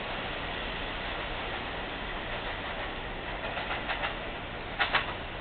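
New York City subway train running on the Brighton Line, a steady rail noise, with a few light clicks past the middle and a quick, sharp double clack near the end.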